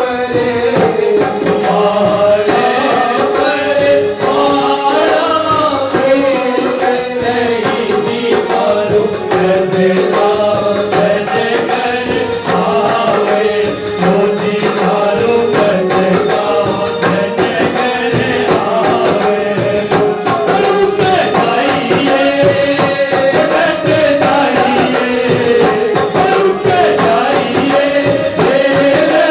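Group of voices singing a Phagan, a Holi folk song, in chorus over a drum beating steadily.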